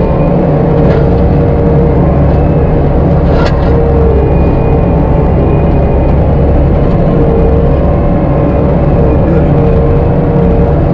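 Skid-steer-mounted Virnig disc mulcher running hard while clearing brush: a loud, steady machine drone with a wavering whine over it. One sharp crack about three and a half seconds in.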